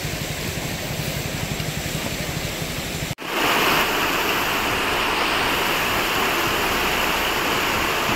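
Mahindra Scorpio SUV's engine running with a low, pulsing rumble while off-roading. About three seconds in it cuts off abruptly and a steady rushing noise takes over.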